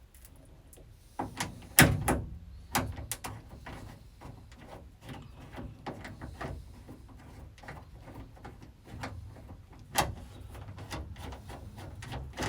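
Scattered knocks, clicks and clanks of hand tools and metal parts being handled, as rivet nuts are set into a sandblasting cabinet's steel window frame. The loudest knock comes about two seconds in, with another sharp one near ten seconds.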